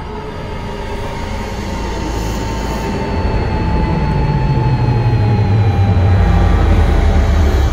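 Horror soundtrack swell: a low rumble that builds steadily in loudness, with held tones slowly falling in pitch.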